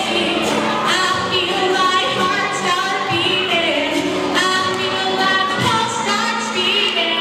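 A woman singing into a microphone, backed by two acoustic guitars.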